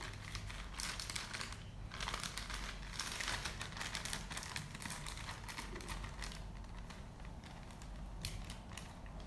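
Thin plastic zip-lock bags rustling and crinkling as one small bag of powder is slipped inside a second one, with irregular light clicks as the zip seal is pressed shut.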